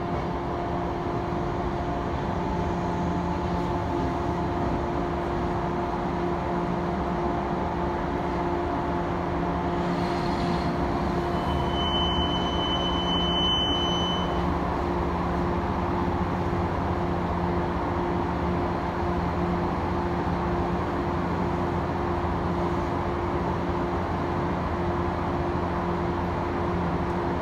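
Steady hum of a stationary electric train's onboard equipment while it stands at a station waiting to depart. A thin high beep sounds for a few seconds about twelve seconds in.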